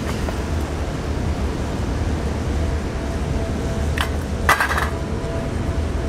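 Steady wind rumble on the microphone, with two sharp metallic clinks a little past halfway, the second louder, from a stainless steel cat food dish knocking.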